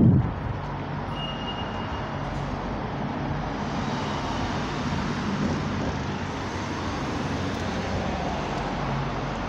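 Steady street traffic noise, with a faint low hum running under it. A short low rumble comes right at the start.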